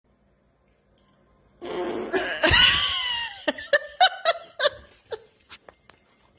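After a second and a half of near silence, a dog farts, deepest and loudest about two and a half seconds in. A person then laughs in short bursts.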